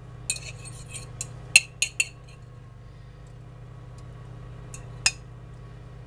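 Metal fork clinking against a china bowl as oil is spooned out: a quick run of sharp clinks in the first two seconds and one more about five seconds in.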